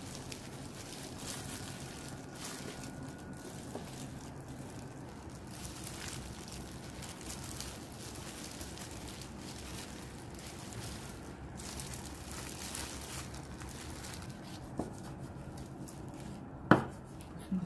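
Plastic-gloved hands rustling softly as they press and roll gimbap on a bamboo mat, over a steady low hum. Near the end, a sharp knock as a kitchen knife cuts through the roll onto a wooden cutting board.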